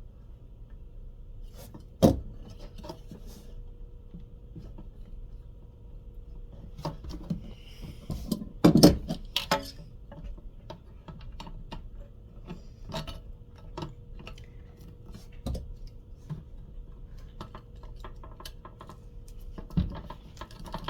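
Small metal tools and parts clicking, clinking and knocking while the old cooling fan's mounting screws are worked loose from a model-train transformer. There is a sharp knock about two seconds in and a louder cluster of knocks around the middle, over a faint steady hum.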